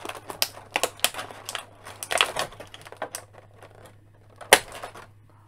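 Clear plastic blister tray crinkling and clicking as small pliers pry the figure's accessories out of it, in irregular ticks with one sharper snap about four and a half seconds in.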